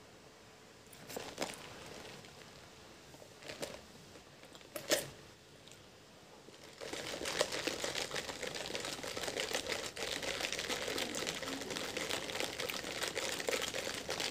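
Close-up mouth sounds of eating and drinking. First come a few short sharp crunches. From about halfway through, milk tea is sipped through a straw with a continuous dense crackle, along with chewing.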